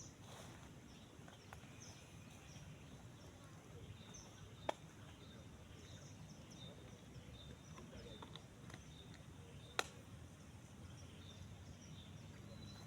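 Faint outdoor ambience: a steady low background noise with scattered faint high bird chirps, broken by two sharp clicks about five seconds apart.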